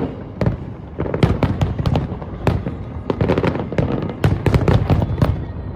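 Fireworks display going off: a dense, rapid run of sharp bangs and crackles, several a second, over a continuous low rumble, thickest about four to five seconds in.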